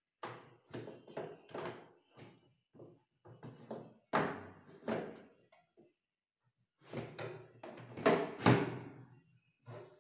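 Kitchen cabinet roller shutter being worked by hand, its slats clattering and knocking in the side tracks and roll housing. The clatter comes in three bouts, with the loudest knocks about four and eight seconds in.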